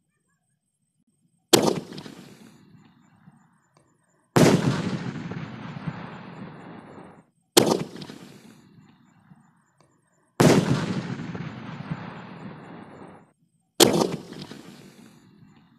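Ajanta Blockbuster sky-shot firework cake firing its shots one after another: five loud bangs about three seconds apart. Each bang dies away, the second and fourth trailing on for a few seconds.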